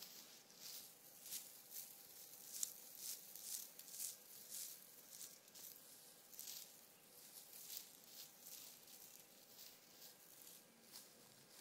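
Faint, irregular soft rustles and scratches of fabric, busiest in the first half, as a small kitten paws and shuffles about on a bedspread.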